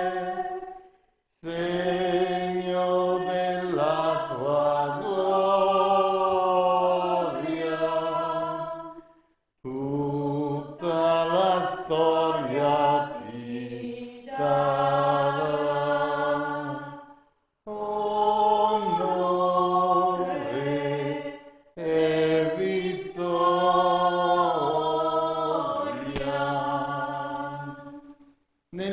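A single voice singing liturgical chant in long, held phrases, with brief pauses for breath between them.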